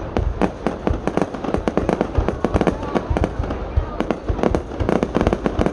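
Fireworks display: a rapid, continuous string of sharp bangs and booms, several a second and overlapping, with no pause.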